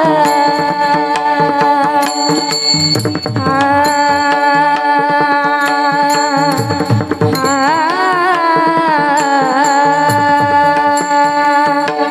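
A Marathi devotional kirtan song: a girl's voice holds long notes with wavering ornaments over sustained instrumental accompaniment and drum strokes. The drumming thickens into quick flurries about three seconds in and again near seven seconds.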